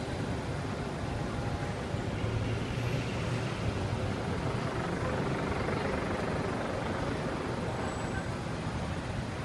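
Steady low rumble of city street traffic, vehicle engines running.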